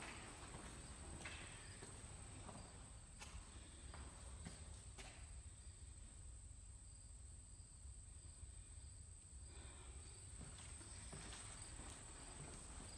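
Quiet footsteps, a scatter of faint irregular steps that stop about five seconds in and start again near ten seconds, over a faint, evenly repeating high chirp.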